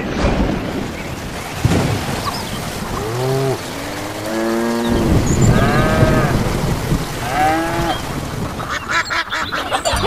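Rain falling steadily, with several drawn-out farm-animal calls between about three and eight seconds in.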